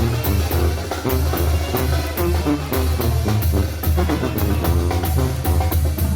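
Tamborazo band playing: brass melody and a low bass line over a tambora bass drum and snare drum keeping a steady, driving beat.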